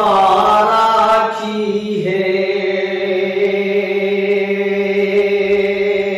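A man singing a ghazal without words: a wavering melodic phrase, then one long steady note held from about two seconds in.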